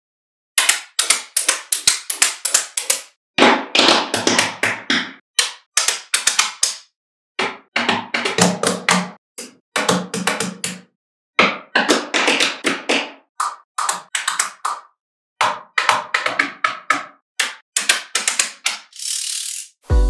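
Magnetic balls clicking and snapping against one another in quick rattling clusters of sharp clicks, with short silences between the clusters. A brief hiss comes near the end.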